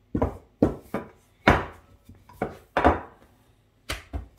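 Rolling pin rolling out a ball of bread dough on a work surface, knocking against it about six times at an irregular pace.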